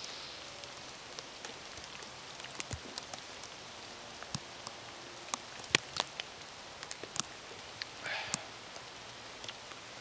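Wet snow falling: scattered, irregular sharp ticks of flakes and drips striking over a steady hiss, with a brief rushing sound about eight seconds in.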